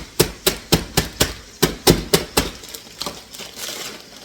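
Knife chopping onion on a cutting board: about nine quick, sharp strikes in the first two and a half seconds, then the chopping stops.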